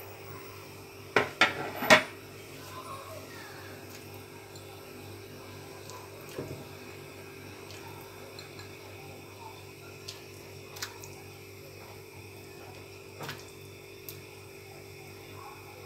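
Three sharp knocks and clinks against an earthenware cooking pot in quick succession, then a few faint ticks as ingredients are handled over the pot, over a steady low hum.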